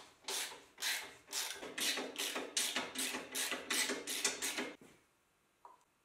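Hand ratchet wrench being worked back and forth on the engine-mount adjusting bolt, a rasping ratchet stroke about twice a second, about a dozen in all, stopping a little before the end, tensioning the V-belt by sliding the engine back.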